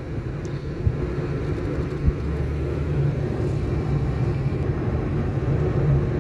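Steady road and engine rumble inside a moving car's cabin, a low, even drone at cruising speed.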